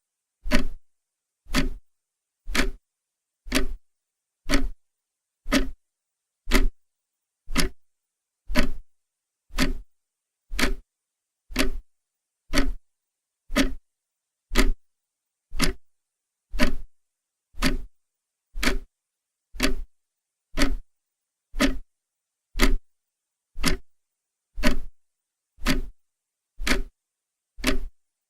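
Clock ticking steadily, about one tick a second, each tick short and sharp with silence between.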